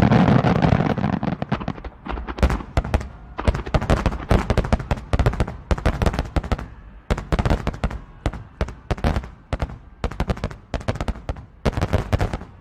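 Aerial shell fireworks bursting in rapid crackling volleys of sharp bangs. The bursts are densest and loudest in the first two seconds, then come in quick clusters of cracks, with a last cluster near the end.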